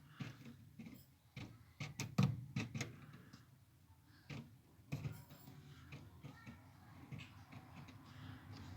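Scattered clicks and knocks of hands working on the parts of a twin-tub washing machine, tightening a loose hose joint, with a cluster of sharp knocks about two seconds in.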